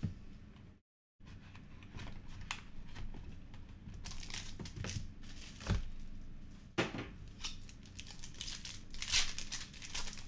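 Clear plastic wrapping crinkling and tearing as a pack of baseball cards is unwrapped by hand, in irregular rustles and crackles. The sound cuts out completely for a moment about a second in.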